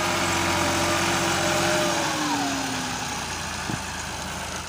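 Massey Ferguson 260 tractor's three-cylinder diesel engine working hard, pulling a heavily loaded sugarcane trolley. The engine note holds steady, then drops in pitch about two seconds in as the engine lugs down under the load.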